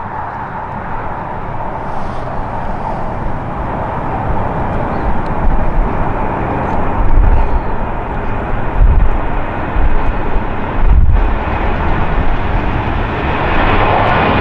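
Boeing 737-800's CFM56-7B jet engines running at takeoff thrust as the airliner rolls, lifts off and climbs overhead, growing louder toward the end. Gusty wind buffets the microphone, adding heavy low rumbles in the middle.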